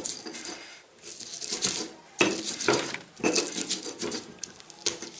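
Stone pestle grinding chilies, garlic and salt against a stone mortar (cobek and ulekan), in rough scraping strokes with brief pauses between them.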